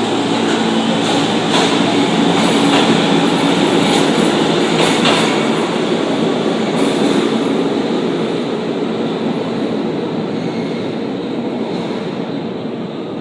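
R46 subway train running on the rails, its wheels rumbling and clacking over rail joints with brief wheel squeals. The sound fades steadily over the second half as the train pulls away.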